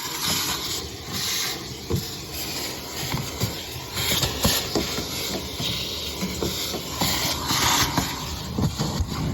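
Vacuum cleaner running, its hiss surging and falling every few seconds as the nozzle works over the car's interior, with scattered light clicks of debris.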